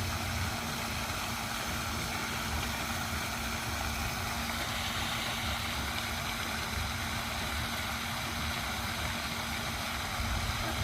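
A steady low rumble with a constant hum, unchanging throughout.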